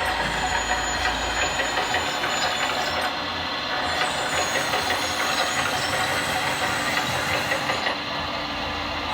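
Steady hissing, whirring mechanical noise from a radio-controlled model truck, without a clear pitch or rhythm.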